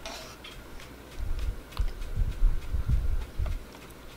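Dull low thumps close to the microphone, about three a second, from a little after the start until near the end, while a burger is handled in both hands.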